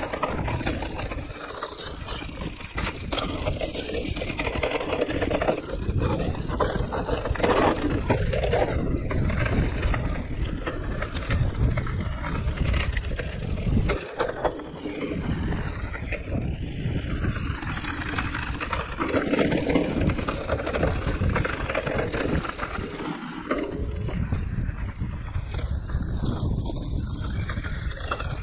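Giant Reign E+ e-mountain bike ridden down a rough enduro trail over roots and stones: a continuous rumble of tyres on the ground, with many quick knocks and rattles from the bike.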